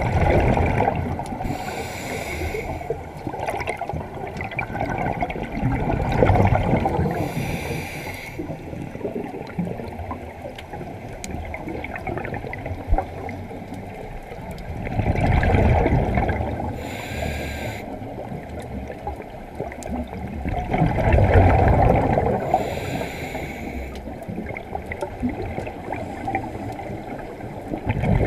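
A scuba diver breathing through a regulator underwater: a few breath cycles, with short rushing inhales and longer low rumbling swells of exhaled bubbles every few seconds.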